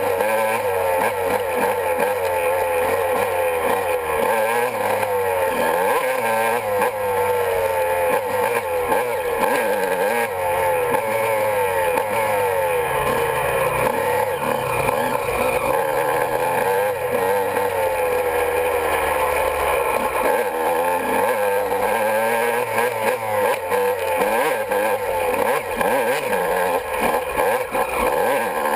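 Honda CR125 two-stroke single-cylinder dirt bike engine being ridden hard, revving up and down as the throttle opens and closes, heard close up from the handlebars.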